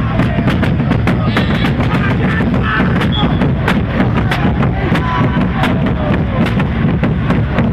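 Music with a steady drum beat of sharp strikes, about three a second, with voices over it.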